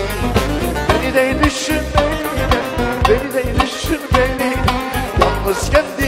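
Lively band music with a steady, quick drum beat: an instrumental stretch of a Turkish pop-folk song.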